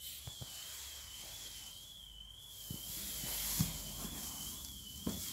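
Kodak Ektapro 3010 slide projector running: a steady fan hiss with a thin high whine that wavers slowly up and down, and a few soft knocks.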